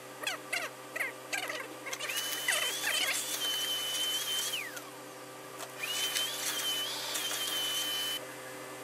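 Large tailor's shears snipping through a mink coat's hem, about five quick cuts in the first two seconds. Then a vacuum cleaner starts with a rising whine, runs steadily and winds down, and runs again for a couple of seconds before cutting off suddenly.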